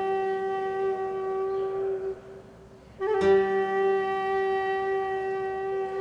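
Music: a wind instrument holds two long, steady notes. The first fades out about two seconds in, and the second starts sharply about a second later and holds.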